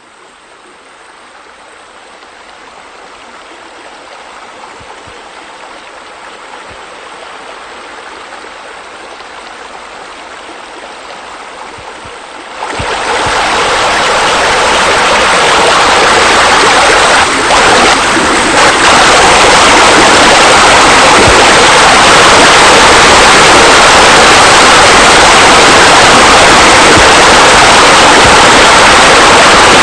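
Rushing, splashing water from pool water features, fading in gradually, then jumping abruptly to a loud steady rush about 13 seconds in.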